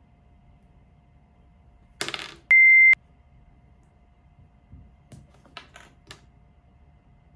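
A short noisy burst followed by a very loud, steady electronic beep lasting about half a second: an edited-in sound effect. Later come a few faint clicks of small plastic toy parts being fitted together.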